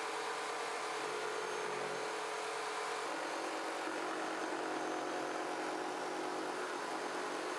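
Inverted jigsaw, mounted under a plywood table with its blade pointing up, running steadily while cutting a small piece of plywood; its pitch shifts slightly about three seconds in.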